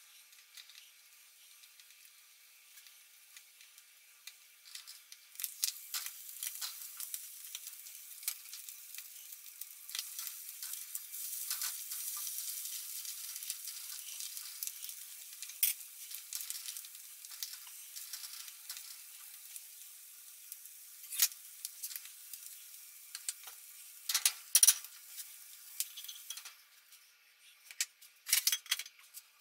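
Omelette frying in a nonstick pan, with a steady sizzle after the first few seconds. A spatula scrapes and taps against the pan as the omelette is turned and broken up, loudest in two short clusters near the end. The audio is sped up four times.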